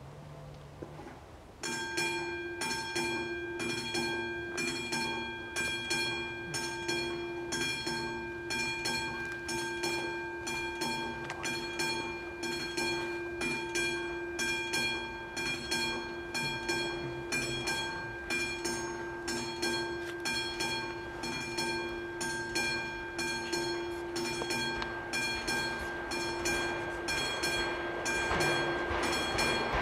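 The classic mechanical bell of a VÚD level-crossing warning signal starts ringing about two seconds in. It strikes a steady rhythm of about two strokes a second, each stroke ringing on. Only one of the crossing's two bells works. Near the end a rising rush of noise builds up under the bell.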